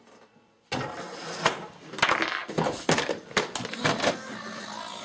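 The clatter of a homemade chain-reaction contraption: a metal socket rattling down a tube, then a quick run of knocks and thuds as a can rolls and a row of books topples one after another. It starts suddenly about a second in and settles to a low steady noise near the end.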